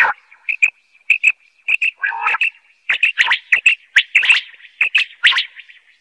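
Common quail calling: a rapid run of short, high call notes, mostly in pairs and threes, with a few louder, lower notes mixed in.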